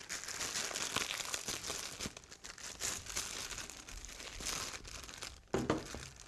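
Plastic packaging of a toner cartridge crinkling as it is unwrapped and handled, with a short thump about five and a half seconds in.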